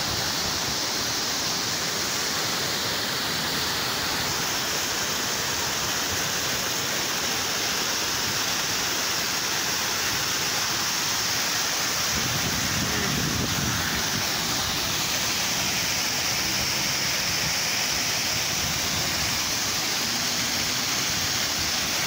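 Small waterfall: shallow water spilling in several streams over a low rock ledge and splashing into a pool below, a steady rushing sound.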